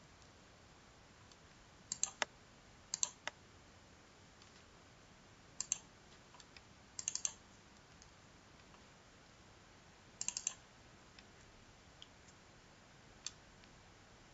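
Computer mouse clicks, singly and in quick pairs and triples like double-clicks, coming every second or few seconds against quiet room tone.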